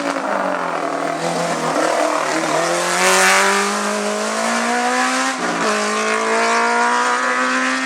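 Hillclimb race car engine at full throttle, its pitch climbing through a gear, a quick drop at an upshift about five and a half seconds in, then climbing again.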